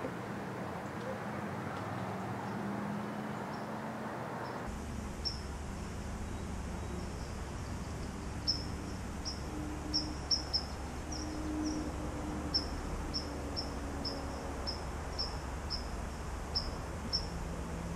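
Quiet woodland evening ambience. After about five seconds a run of short, high chirps begins, repeating roughly every half second, over a steady low rumble.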